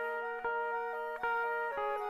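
Rock song instrumental passage: a guitar picking ringing notes that change every half second or so, with no singing.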